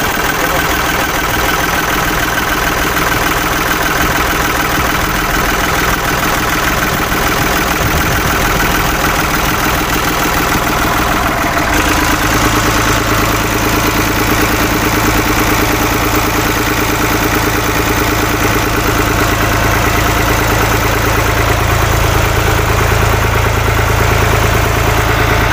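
Ford New Holland 3630 tractor's three-cylinder diesel engine idling steadily. About halfway through it turns a little louder and deeper.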